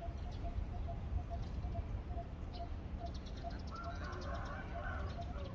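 Steady low rumble of outdoor background noise, with a short high beep repeating evenly about twice a second and birds chirping now and then.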